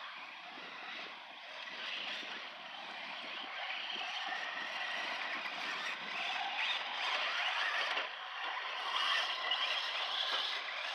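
Radio-controlled Traxxas Slash short-course trucks driving on a dirt track: a steady rough running and tyre-on-dirt noise that grows louder as the trucks come nearer.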